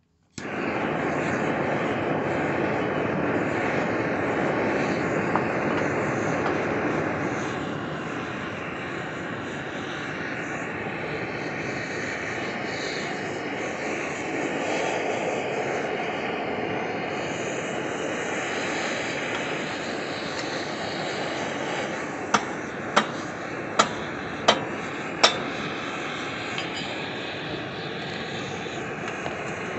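Handheld gas torch burning with a steady rushing hiss as it heats a stuck crankshaft pulley on a Briggs & Stratton engine to free it. Five sharp clicks come in quick succession about three-quarters of the way through.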